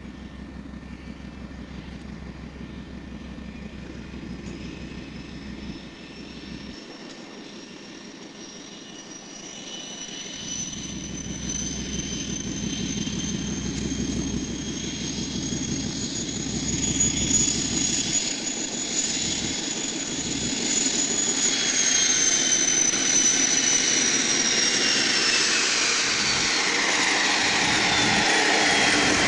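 British Rail Class 56 diesel locomotive approaching and then passing close by at the head of a train of tank wagons. Its Ruston-Paxman V16 engine rumbles under a high turbocharger whistle that climbs as it nears and grows steadily louder, and the whistle drops in pitch as the locomotive goes past near the end.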